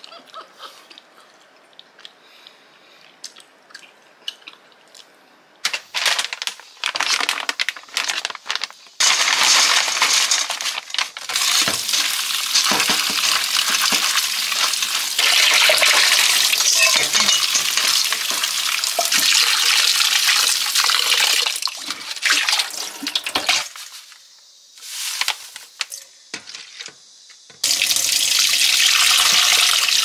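Kitchen tap running hard into a stainless steel sink as dried radish strips are rinsed in a mesh strainer, then filling a steel bowl. The water starts in short splashes, runs steadily for a long stretch, stops for a few seconds and runs again near the end.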